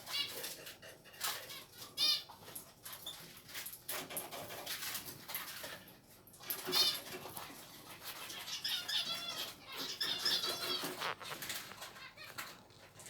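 Mixed small cage birds (finches and canaries) chirping with short repeated calls, amid frequent wing flaps and rustling as they move about the cage; the calling is busiest about two-thirds of the way through.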